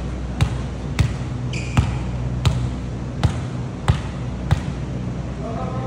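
A volleyball bounced repeatedly on a hard gym floor: seven even bounces, a little over one a second, then it stops about 4.5 seconds in. A steady low hum runs underneath.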